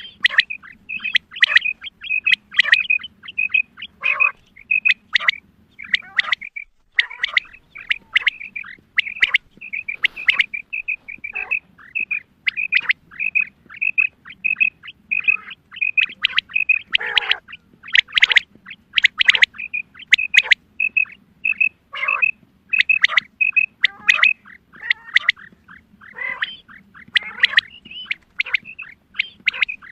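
Female quail calling: a continuous run of short, high call notes at about two a second, broken every few seconds by louder, harsher calls that drop in pitch.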